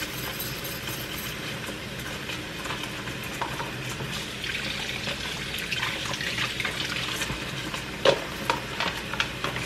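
Kitchen faucet running into the sink while small red potatoes are rinsed and rubbed by hand under the stream, with a few light knocks as they are handled, one clearer knock about eight seconds in.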